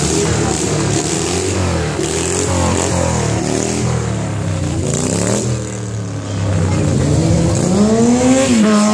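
Stunt motorcycle engine revving up and down several times while the rider holds a wheelie, its pitch climbing and dropping, with a long climb near the end held briefly at the top.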